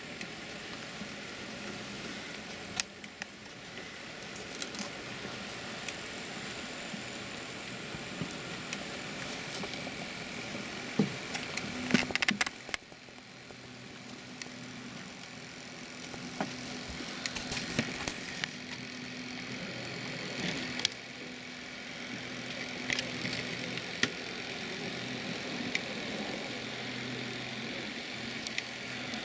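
Electric model locomotive, a green LNER 4472 Flying Scotsman, running on model railway track: a steady motor hum with irregular clicks and rattles from the wheels on the rails, and a burst of louder clicks near the middle.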